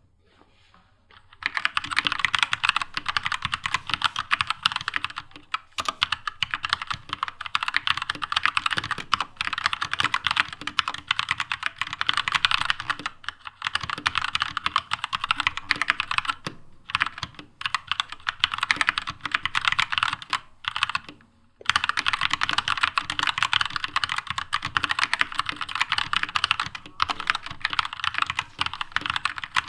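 Fast, continuous typing on a Keychron K2 mechanical keyboard fitted with Gateron Red linear switches: dense runs of key clacks, broken by a few short pauses. The typing starts about a second and a half in.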